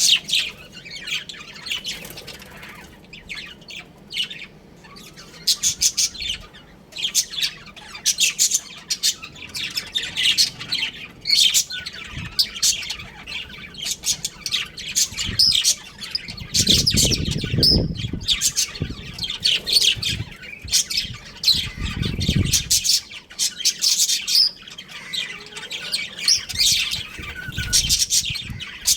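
A flock of budgerigars chattering, with dense, rapid high chirps and squawks overlapping throughout. Two spells of low, muffled noise come past the middle, a few seconds apart.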